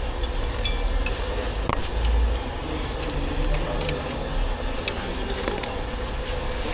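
Scattered light metallic clinks and taps of tools and engine parts being handled, over a steady hum.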